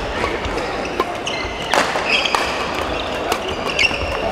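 Badminton play in a sports hall: sharp racket hits on a shuttlecock, several within a few seconds, and short squeaks of shoes on the court floor, over a steady background din.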